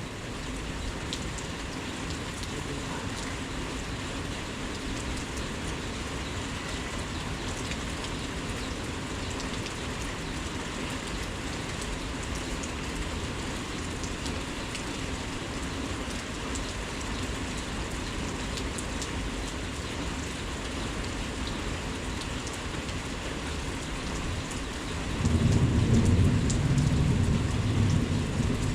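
Heavy rain falling steadily, with a low rumble of thunder starting near the end and rising above the rain.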